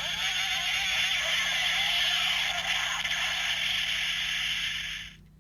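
Electronic sound effect from the DX Kimewaza Slot Holder toy's speaker: a steady hissing rush lasting about five seconds that fades out near the end.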